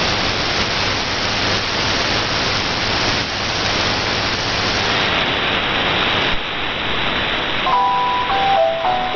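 Shortwave radio static: a steady hiss of the received signal. Near the end a chiming, glockenspiel-like melody fades in over the hiss, the station's interval signal ahead of the broadcast.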